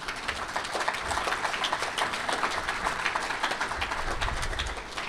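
Audience applauding: many hands clapping in a dense, even patter that dies away near the end.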